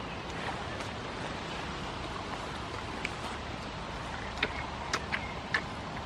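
Steady rushing background noise with several short, sharp clicks in the second half.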